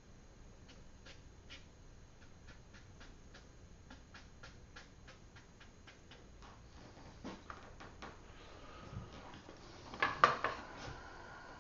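Faint, irregular light ticks of a watercolour brush working on paper. About ten seconds in comes a short, louder clatter with a brief ringing, as a hard object is handled on the painting table.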